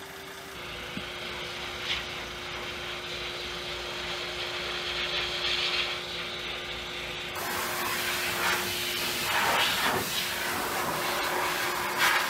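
A steady machine hum with a hiss over it. About seven seconds in, the hiss gives way to a louder, rougher rushing noise with a few soft rustles, while the hum carries on.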